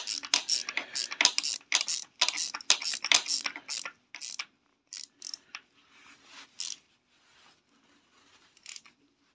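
Socket ratchet clicking quickly, about four clicks a second, as the front sprocket nut is tightened. After about four seconds the clicking breaks off into a few scattered clicks.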